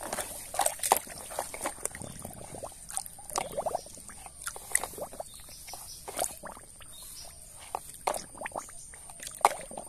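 A hand sloshing and rummaging in a basin of thick muddy water, making many small irregular splashes and drips.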